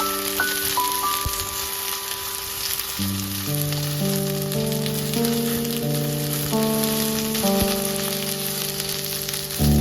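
Food sizzling in a frying pan, with background music of held notes.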